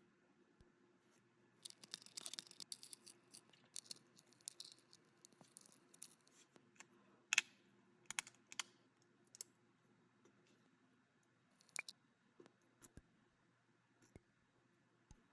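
Skateboard parts being handled and worked on by hand: a flurry of crisp scrapes and clicks, then one sharp click or knock partway through, followed by a few scattered ticks.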